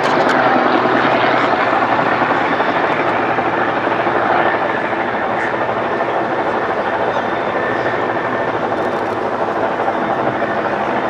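Single-engine propeller race plane flying at full power, a steady engine-and-propeller drone that eases slightly about four and a half seconds in.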